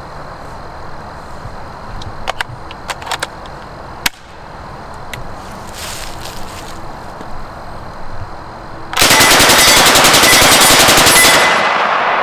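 Madsen M-50 9mm submachine gun firing one long full-auto burst of about two seconds, starting about nine seconds in, with echo dying away after the last shot.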